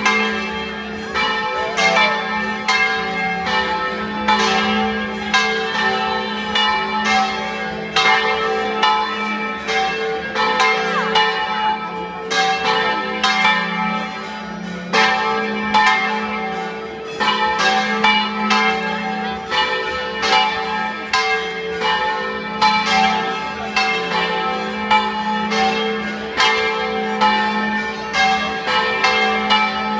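Church bells ringing a continuous peal, struck two or three times a second, with the bells' low hum carrying on between strikes.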